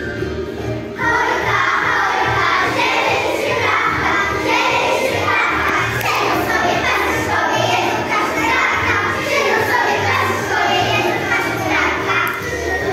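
A class of young children singing a Polish Christmas pastorałka in unison over instrumental accompaniment with a steady bass beat. The singing comes in about a second in, after the instrumental introduction.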